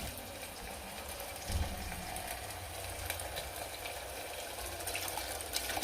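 Food cooking in a pan: a faint steady hiss with scattered small crackles, with no music.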